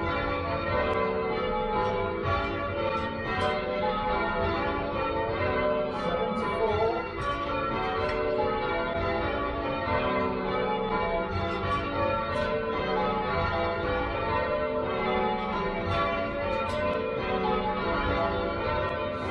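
Church tower bells being change-rung, struck one after another in a steady, even rhythm, their ringing tones overlapping.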